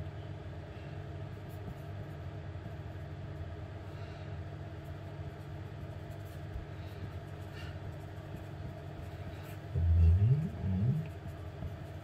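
Steady low background hum with faint pencil scratching on paper. About ten seconds in, a louder low rumble rises in pitch twice and fades after about a second.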